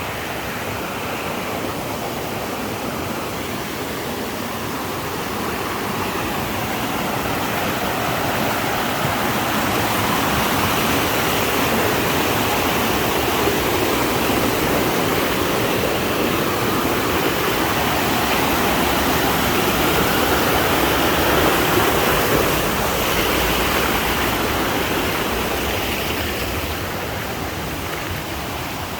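Mountain valley stream rushing steadily; the water grows louder through the middle and eases off a little near the end.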